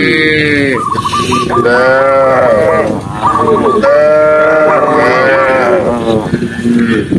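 Several cattle mooing, their long calls overlapping almost without a break, some lower and falling in pitch, others higher and wavering.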